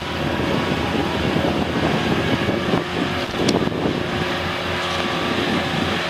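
Steady rushing wind on the microphone aboard a moving sailing catamaran, with a low, steady hum underneath.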